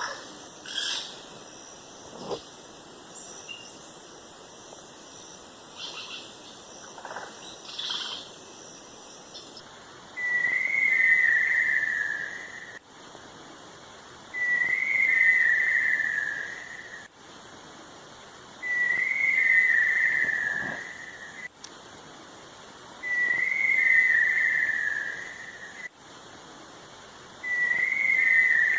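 A long, wavering whistled call that slides slightly down in pitch, repeated five times at about four-second intervals starting about ten seconds in. Before it, only faint scattered chirps.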